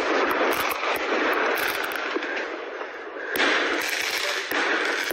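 Firework mortars going off: a rapid scatter of bangs and crackling cracks over a continuous noisy rush, growing louder about three and a half seconds in.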